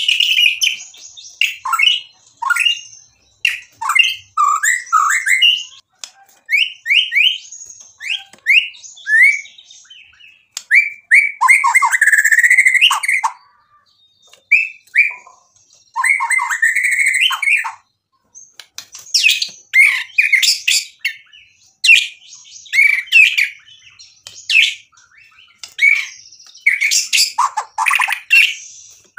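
White-rumped shama (murai batu) singing in full song. A fast string of varied whistled phrases with quick rising and falling notes is broken by brief noisy bursts and short pauses.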